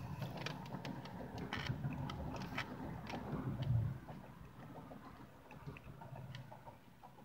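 Close-up wet chewing and mouth smacking of a mouthful of soft pineapple pie with whipped cream, with many small squishy clicks. It is louder for the first four seconds or so, then quieter.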